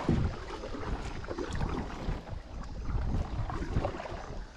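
Wind buffeting the microphone, with water noise from a kayak being paddled along a river; an uneven, gusty rumble.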